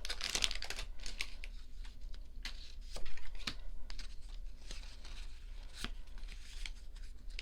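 Foil wrapper of a Pokémon trading-card booster pack crinkling and tearing as it is opened by hand, in scattered short rustles and clicks, a little louder about three seconds in.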